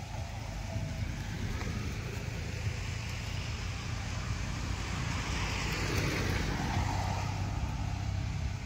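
Road traffic: a motor vehicle passes, its noise swelling and then fading around six seconds in, over a steady low engine hum.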